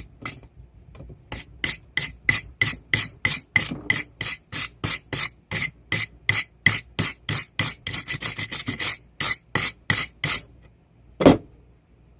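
Wire brush scrubbing a freshly forged railroad spike in quick back-and-forth strokes, about three a second, to clean off the forge scale after punching. One sharp knock follows near the end.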